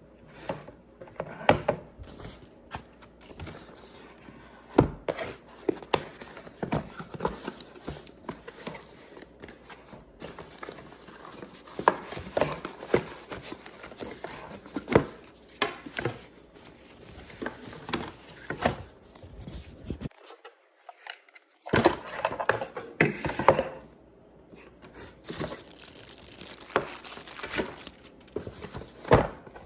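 Unboxing: packaging being handled and unwrapped, with crinkling and tearing of wrapping and irregular sharp clicks and knocks as parts are handled and set down.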